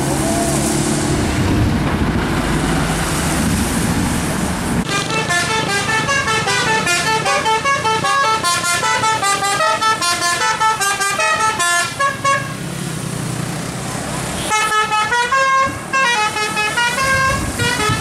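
A tour bus's 'telolet' musical air horn playing a quick tune of notes stepping up and down, starting about five seconds in and running for about seven seconds, then playing again about fourteen and a half seconds in. Before and between the tunes, the bus's engine is heard running.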